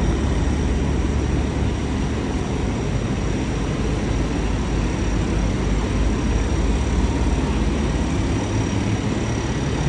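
Steady low rumble of vehicle engines running, unchanging throughout.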